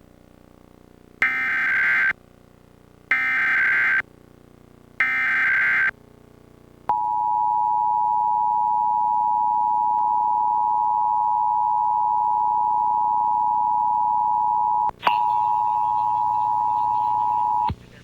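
Emergency Alert System test: three short, harsh SAME digital header bursts, followed by the steady two-tone EAS attention signal, which drops out for a moment partway through before cutting off.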